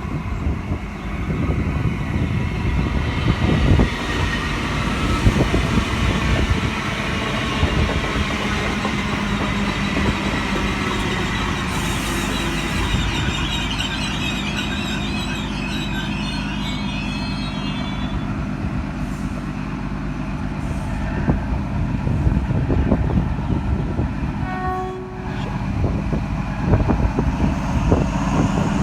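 Two passenger trains pulling into a station, an XPT diesel train and a V set electric train, with a steady heavy rumble. High squealing from wheels and brakes runs through the first part and dies away after about 18 seconds.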